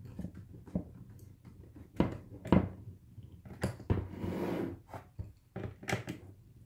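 A hand screwdriver tightening a screw into the facemask clip of a football helmet, with scattered clicks and knocks of the tool and the helmet being handled. There are two louder knocks about two seconds in and a brief rustle about four seconds in.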